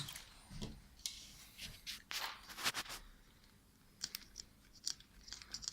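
Faint clicks, scrapes and rustles of hands handling the plastic wheel and hub of a nitro RC truck while the wheel is fitted and spun. The busiest stretch is around the middle.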